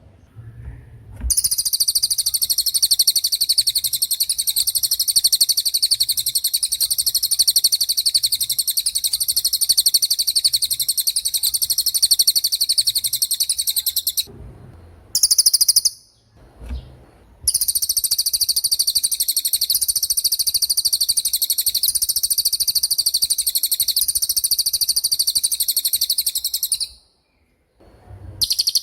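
Canary singing in the 'cililin' style: long, very high, rapid trills, one of about thirteen seconds and one of about nine, with a short burst between them and another near the end.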